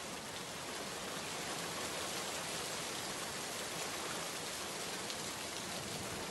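Steady rainfall from a stock rain sound-effect recording, an even wash of many drops that swells slightly over the first couple of seconds.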